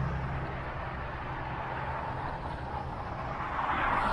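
Street traffic: a motor vehicle's low engine hum fades away in the first second, then steady road noise, with another vehicle passing and getting louder near the end.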